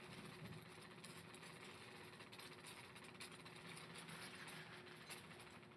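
Near silence: faint steady room hum with a thin constant tone.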